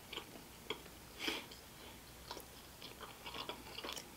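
Close-miked chewing of a soft-baked, pink-iced sugar cookie dipped in almond milk: scattered short mouth clicks, one louder about a second in and another near the end.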